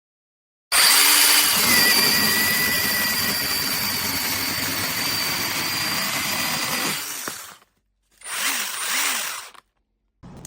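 Cordless brushless mini chainsaw running at full speed with a high motor whine for about seven seconds, then spinning down. A shorter burst of running follows, then a brief blip near the end.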